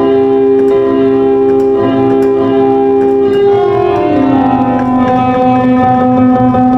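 Roland VA-7 arranger keyboard sounding a sustained chord; about three and a half seconds in, the notes slide down in pitch and settle on a lower held chord.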